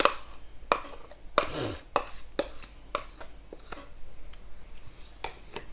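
Metal spoon tapping and scraping against a plastic tub and a plastic mixing bowl while soft butter is scooped out and dropped in: a dozen or so irregular clicks, with a longer scrape about a second and a half in.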